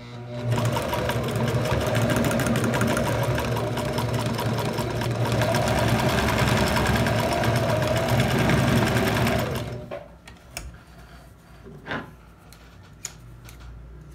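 Electric domestic sewing machine stitching a seam at a steady speed for about nine seconds, a fast even needle rhythm over a low motor hum, then stopping. A few light clicks follow.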